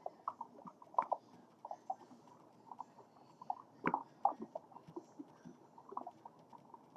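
Sea turtle calls: faint, irregular short chirps and clicks, several a second, with two sharper clicks about a second in and again near four seconds.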